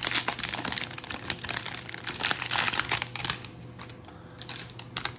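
Plastic wrapper of a trading-card value pack crinkling as it is pulled open by hand. It rustles densely for about three seconds, then settles to a few scattered crackles.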